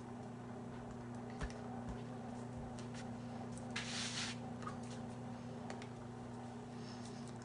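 Quiet room tone: a steady low hum with scattered soft clicks and taps, and a brief hiss about four seconds in.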